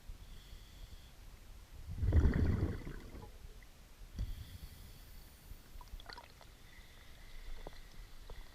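Underwater sound of a scuba diver breathing through a regulator: a burst of exhaled bubbles rumbling about two seconds in, a weaker one about four seconds in, and a few faint clicks near the end.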